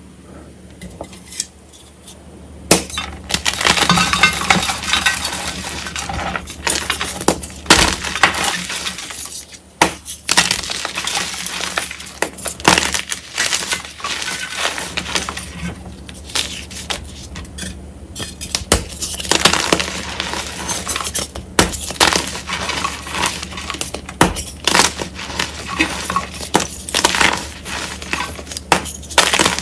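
Reformed gym chalk hearts crunching and crumbling as hands squeeze and break them into powder. Quiet for the first few seconds, then dense crunching with many sharp snaps.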